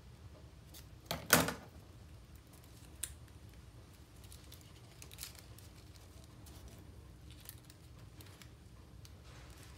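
Scissors snipping through folded paper about a second in, the loudest sound. A sharp click follows about two seconds later, then faint paper rustling and light clicks as the cut paper is handled.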